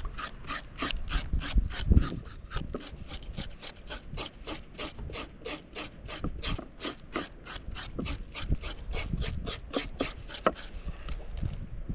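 A knife scraping over a fish as it is cleaned, in rapid even rasping strokes about three or four a second that die away near the end.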